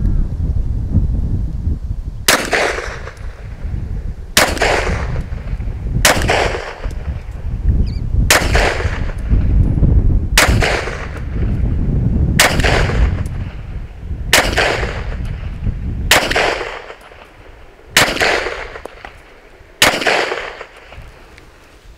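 ZEV OZ9 9mm pistol firing ten single shots, slow deliberate fire about two seconds apart, each crack trailing off in a short echo.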